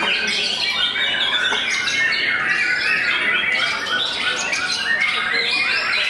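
White-rumped shama (murai batu) singing, a continuous stream of rapid, varied phrases with no pause.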